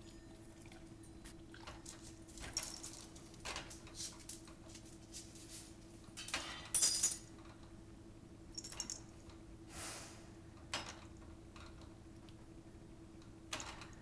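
Light metallic jingling and clinking in scattered bursts as a cat paws at a dishwasher's wire racks, its metal collar tag swinging; the loudest burst comes about seven seconds in. A faint steady hum runs underneath.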